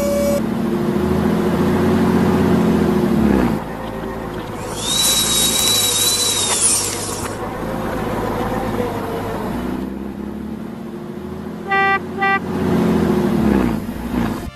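Vehicle engine sounds running and changing pitch, with a loud hiss and a high steady whistle for about two seconds in the middle. Two short horn toots come near the end.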